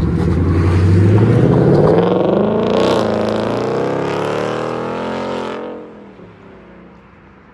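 Ford Mustang GT's 5.0 L Coyote V8 with its rear mufflers deleted, accelerating hard as it drives off. The pitch climbs, then drops as the car pulls away, and the sound fades out about six seconds in.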